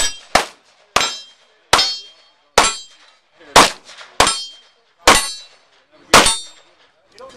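Semi-automatic pistol fired in a string of about nine shots at an uneven pace, roughly a second apart. Several shots are followed by a short metallic ring.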